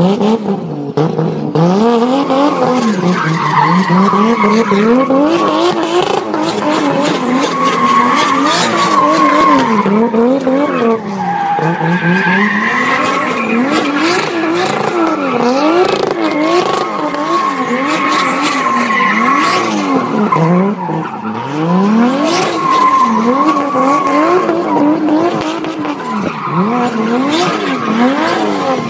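BMW car being drifted: the engine revs rise and fall over and over, about once a second, under a continuous tyre squeal.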